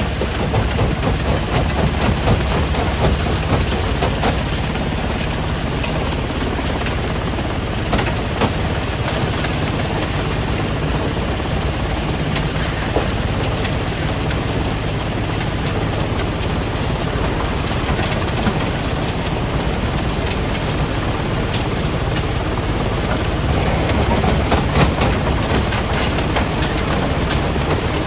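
Heavy machinery at a stone crusher plant running steadily: a low diesel engine hum under a dense rattle and clatter of rock, with scattered sharp knocks.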